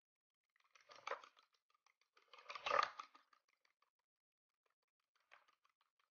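Light crackling and clicking of hands handling ingredients over a ceramic mixing bowl, in two short bursts, the second with a soft knock against the bowl, and a faint third one near the end.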